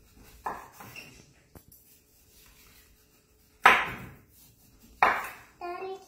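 Kitchen knife cutting the rind off a whole watermelon and knocking on the wooden cutting board: a few light knocks in the first two seconds, then two louder ones about three and a half and five seconds in.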